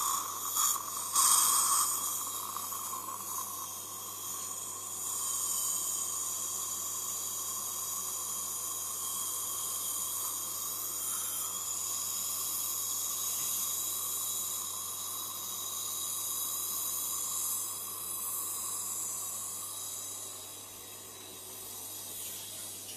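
Dental suction hissing steadily as it draws air and fluid from the mouth, over a low steady hum. It fades near the end.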